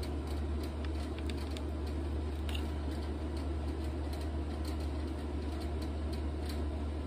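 Handling noise from a 12 V tire-inflator air compressor and its coiled power cord being turned over in the hands: a soft rustle with a few small plastic clicks, over a steady low hum.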